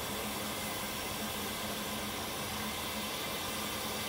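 Steady hiss of escaping steam from the Double Fairlie steam locomotive 'Merddin Emrys' standing with steam up, with a faint low hum underneath.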